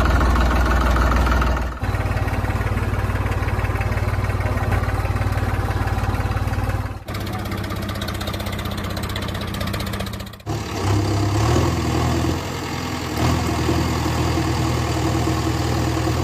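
Vehicle engine sounds, idling and briefly revving, in several segments that change abruptly about 2, 7 and 10 seconds in.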